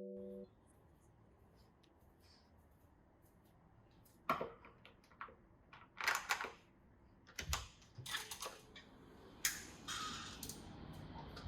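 Background music cuts off, then scattered sharp clicks and knocks of small objects being handled, some in quick clusters, over faint room tone.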